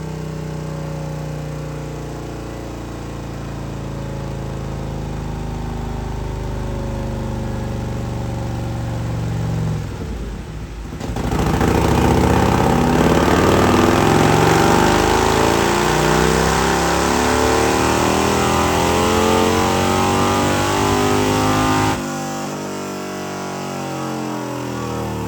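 Harley-Davidson CVO Milwaukee-Eight 121 V-twin with a TTS 250 cam running steadily for about ten seconds, then, after a brief dip, held at full throttle with its pitch rising steadily for about eleven seconds, as in a dyno pull, before the throttle shuts off suddenly and it drops back to idle.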